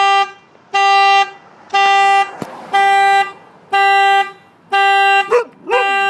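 Car horn sounding in short, evenly spaced beeps, about one a second, as a dog in the car presses it again and again. A dog gives a short bark between two honks near the end.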